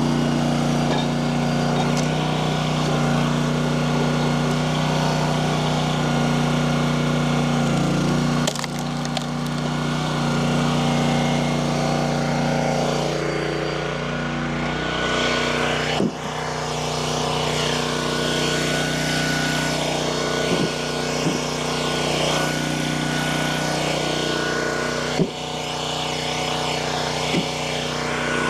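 A small gasoline engine running steadily under load while firewood logs are worked, its note dipping a few times. Several short sharp cracks of wood come in the second half.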